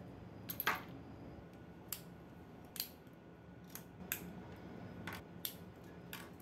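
Hard plastic action-figure parts clicking and snapping as they are pried with a metal tool and pulled apart: irregular sharp clicks, the loudest about a second in.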